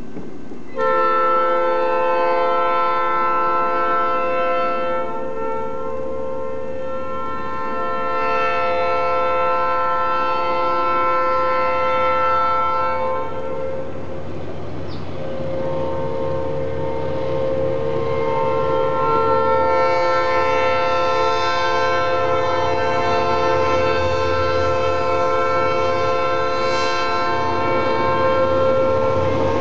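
Multi-note air horns of the diesel freight locomotives X37 and A71 sounding long, sustained chords, broken by a short pause about 14 seconds in, with notes dropping out and joining along the way. Under the horns, the low rumble of the approaching locomotives and train grows in the second half.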